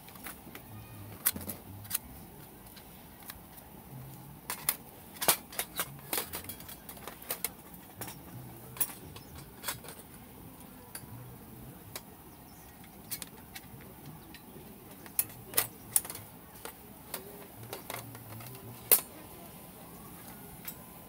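Irregular sharp clicks and light clinks of camp gear being handled, several in quick runs, the loudest near the end.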